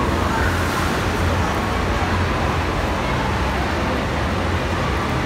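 Steady, even roar of background din with a low hum underneath and no separate events, the kind of constant rushing noise that fills an indoor waterpark hall.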